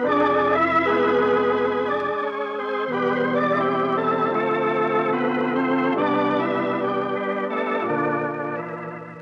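Organ music bridge between scenes of a radio drama: sustained chords with a slight waver, changing every second or so, fading down near the end.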